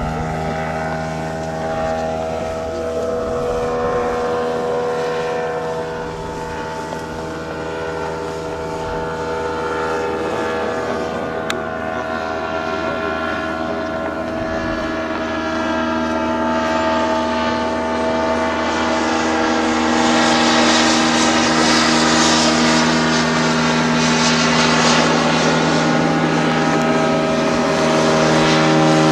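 Radio-controlled model airplane's motor and propeller running with a steady drone as it flies, growing louder about two-thirds of the way through and again near the end.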